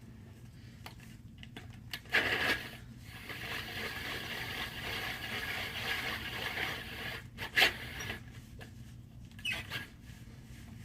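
Large crank tape measure being handled: a short scrape about two seconds in, a steady rubbing for a few seconds in the middle, then a couple of short sharp knocks.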